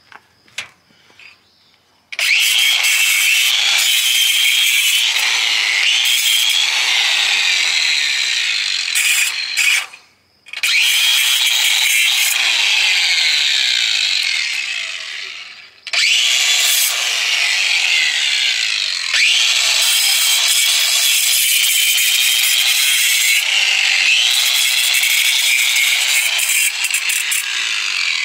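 Cordless angle grinder with a cutoff wheel cutting through steel chicken wire: a loud, harsh, high-pitched grinding that starts about two seconds in. It stops briefly about ten seconds in, winds down around fifteen seconds, then starts again and runs on steadily.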